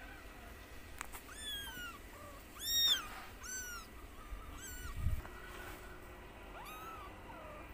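Kitten mewing: a series of about eight short, high-pitched mews, the loudest about three seconds in. A low thump about five seconds in.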